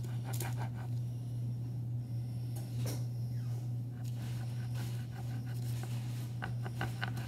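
A table knife cutting and scraping through soft dough on parchment paper on a counter, in short scrapes and taps, a few near the start, one about three seconds in and a cluster near the end. Under it runs a steady low hum.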